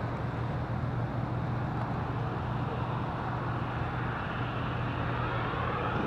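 Steady low hum of an idling vehicle engine, with a faint rising whine coming in near the end.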